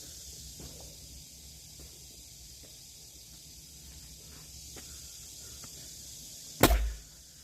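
An axe strikes a piece of firewood once near the end: a single sharp, loud crack with a short ring. Before it there is only a steady faint outdoor hiss.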